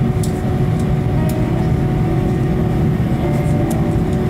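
Steady cabin noise inside an airliner on the ground: a low rumble with a steady hum over it and a few faint clicks.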